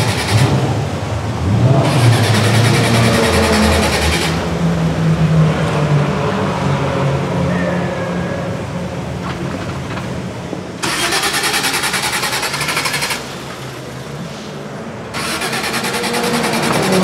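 A car engine being started and running, with a steady low engine note. The sound comes in several short takes that change abruptly about four, eleven, thirteen and fifteen seconds in.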